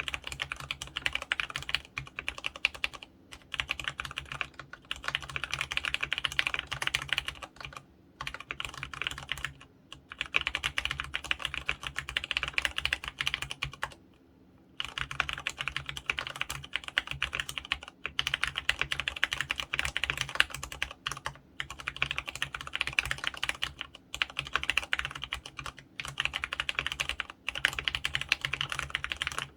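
Fast typing on a mechanical keyboard with fully lubricated 35g brown-type Clarion switches: dense runs of key clicks broken by brief pauses, one longer pause near the middle.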